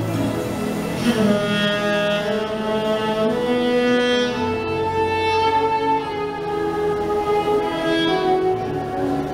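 Slow instrumental wedding processional music: a melody of long held notes over a soft sustained accompaniment, played by a live church band.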